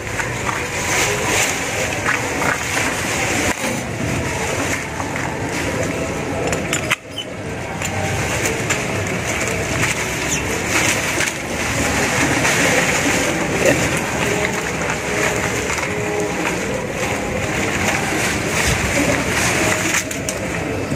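Grape vine leaves and stems rustling as they are handled close by, over a steady background noise, with a few faint clicks.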